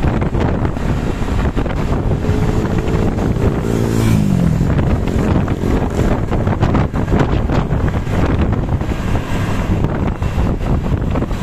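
Heavy wind buffeting the microphone over road traffic noise. About two seconds in, a passing vehicle adds a pitched hum that holds steady and then falls in pitch as it goes by, about four seconds in.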